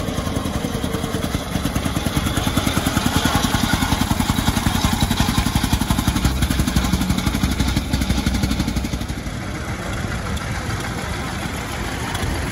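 Early brass-era automobile engines running in fast, even pulses as the cars drive past one after another, loudest as one passes close about a third of the way in.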